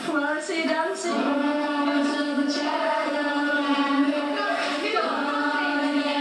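A group of girls singing together without accompaniment, holding long notes in a slow melody.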